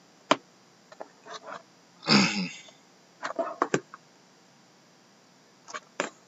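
Shrink-wrapped cardboard card boxes being handled and turned over on a wooden table: scattered short taps and clicks, with a louder short noisy burst about two seconds in.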